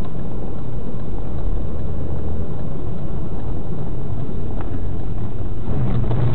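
A car's engine and road noise while driving, a loud steady rumble with a low engine hum that grows stronger near the end.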